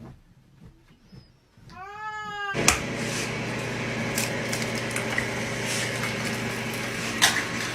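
A cat meows once, a call that rises and falls. About two and a half seconds in, a louder steady noisy hum takes over, with a few sharp clicks.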